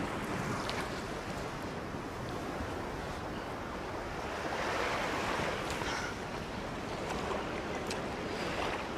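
Sea waves washing onto a beach, with a steady wash of surf that swells around the middle.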